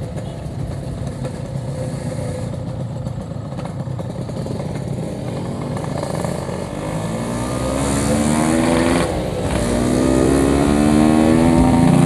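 Yamaha RX-King 135cc single-cylinder two-stroke motorcycle engine riding at a steady pace, then accelerating: the pitch rises, drops briefly at a gear change about nine seconds in, and climbs again before levelling off.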